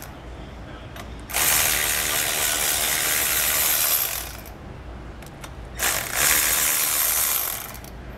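Cordless electric ratchet running in two spells, about three seconds and then about a second and a half, as it spins U-bolt nuts off a trailer leaf spring.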